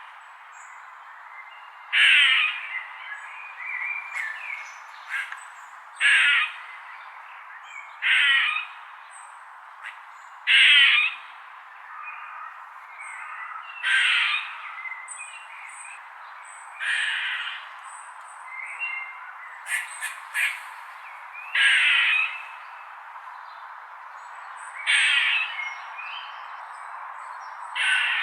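Squirrel giving harsh, squawking calls over and over, a loud call every two to four seconds with fainter ones between, over a steady background hiss.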